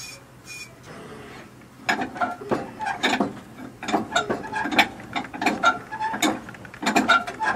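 Metal-on-metal clicking and clanking from hand tools working a stuck engine, a quick irregular series of sharp ringing clicks starting about two seconds in.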